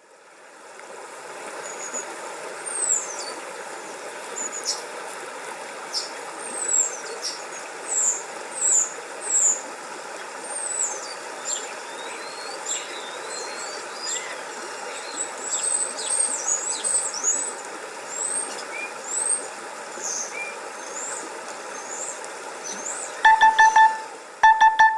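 Nokia T26 nature-themed ringtone: many birds chirping and twittering over a steady hiss, which fades in over the first couple of seconds. Near the end, two quick clusters of short electronic beeps begin.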